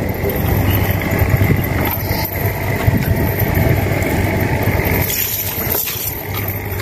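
A small boat engine running steadily.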